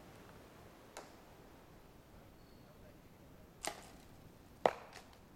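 Three short, sharp knocks a few seconds apart, the last and loudest near the end, over faint outdoor background.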